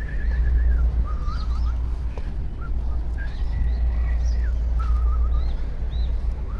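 Birdsong: a phrase of a held, warbling whistle followed by a short lower trill, repeated about every three seconds, over a steady low rumble.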